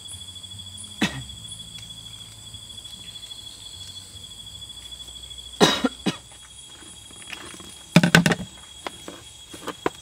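Crickets and other night insects calling in a steady, high chorus. It is broken by a few sudden short noises: one about a second in, and louder ones near six and eight seconds in.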